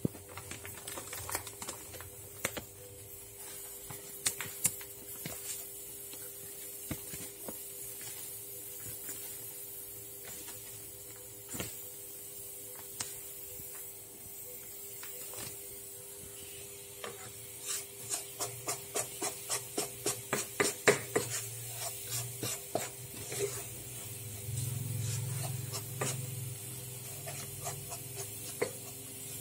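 Wooden spatula stirring and scraping a dry powder around a non-stick pan: scattered scrapes at first, then quick strokes at about two a second in the second half.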